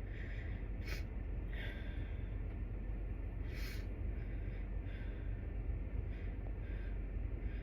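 A person catching their breath in short gasps while fighting sneezes, with short sharp bursts through the nose about a second in and again after three and a half seconds: sneezes stifled without the hands.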